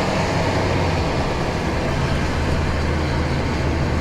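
GAZelle Next van driving, heard from inside the cab: a steady low engine hum under road and tyre noise.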